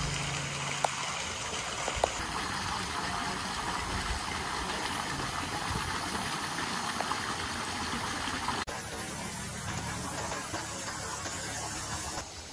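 Steady outdoor rushing noise with a couple of faint clicks near the start; it cuts abruptly to a quieter stretch about two-thirds of the way through.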